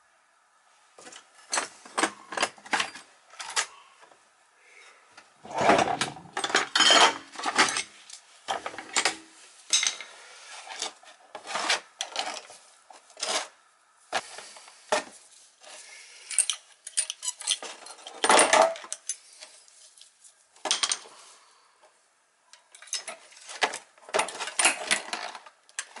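Irregular metallic clinks, taps and scrapes of a screwdriver and metal parts as an oil burner's nozzle and electrode assembly is taken apart in a drip tray.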